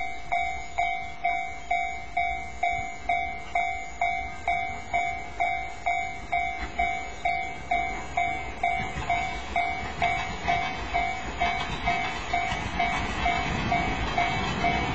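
Japanese level-crossing warning bell ringing evenly at about two and a half dings a second. From about halfway through, the rumble of an approaching JR West 283 series limited express train grows steadily louder under the bell.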